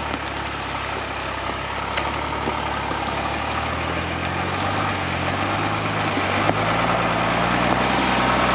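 Mercedes Unimog U1700L's six-cylinder diesel engine running at low revs as the truck crawls slowly along a rough 4WD track; the engine note shifts about six seconds in and grows a little louder towards the end.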